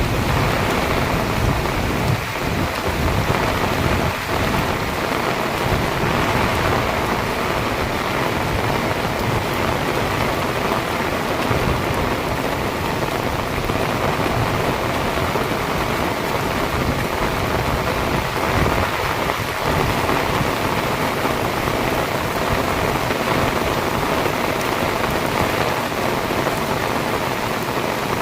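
Heavy rain pouring down steadily and hitting surfaces, with a low rumble of thunder right at the start.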